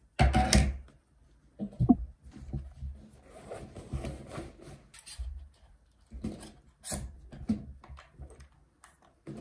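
Rustling and handling noise of packing a canvas tote bag, with a folder slid in and a small metal case handled, broken by a few sharp clicks and knocks. Right at the start comes a loud short rustle as a plastic claw clip is put into hair.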